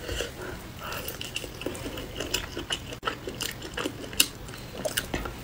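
Close-miked eating sounds: irregular crackling clicks as roasted meat on the bone is torn apart by hand and bitten.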